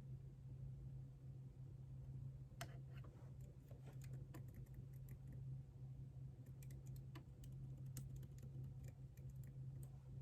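Typing on a computer keyboard: quick, irregular keystrokes starting about two and a half seconds in, over a low steady hum.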